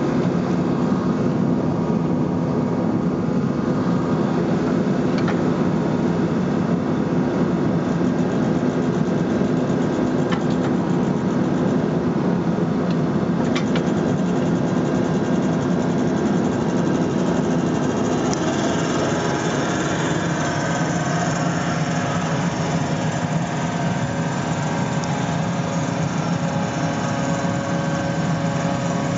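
New Holland E80B midi excavator's diesel engine running steadily while its hydraulics drive an earth auger screwing in ground anchors. A higher whine joins about two-thirds of the way through, with a few faint clicks earlier.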